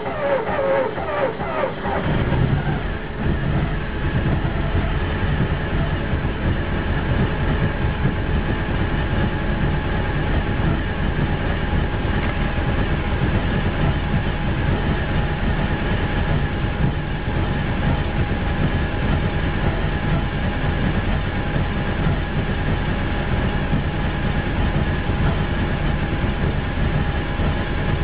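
VW bus engine running on Megasquirt MS-II fuel injection with EDIS ignition catches about two seconds in and then runs steadily.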